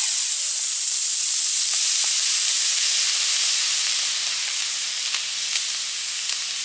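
An 18mm D2.3 long-burn model rocket motor burning after ignition: a loud, steady hiss that starts suddenly and slowly grows fainter as the rocket climbs away.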